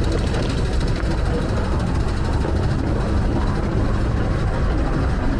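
Hong Kong MTR train running: a steady, loud low rumble with no breaks.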